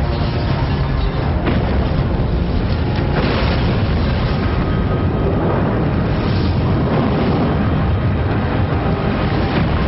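Rumble of a skyscraper collapsing into smoke and debris, a deep, continuous roar of falling masonry used as an animation sound effect.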